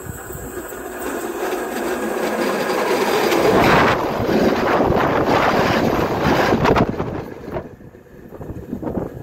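Electric train passing directly over the rails at track level: wheels rumbling on the track, with repeated clicks as the wheelsets roll overhead. It builds from the start, is loudest in the middle and fades about three-quarters through.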